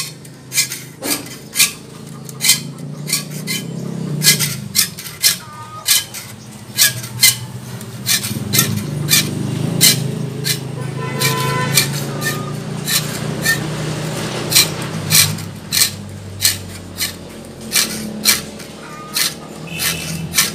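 Metal file rasping across the teeth of a handsaw clamped in a vise, sharpening the saw, in short even strokes a little under two a second.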